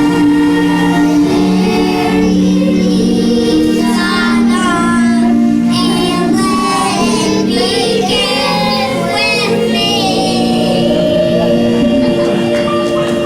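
Children's voices singing a song over a backing track, with some steady held notes under the singing.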